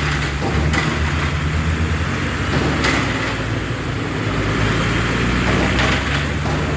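Diesel dump truck engine running as the truck drives slowly past, with a few short metallic clanks from its body.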